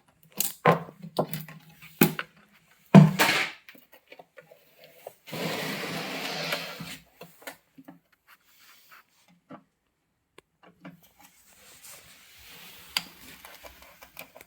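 Handling and opening a home theatre's power transformer: a few sharp knocks and clicks, then a scraping, tearing sound lasting about a second and a half, and lighter rustling later on.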